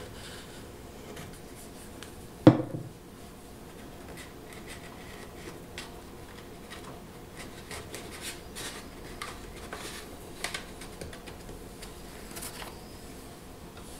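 One sharp knock about two and a half seconds in, then faint scattered rubbing and small ticks as the flexible purfling strip is pressed by hand into its glued groove along the guitar's edge.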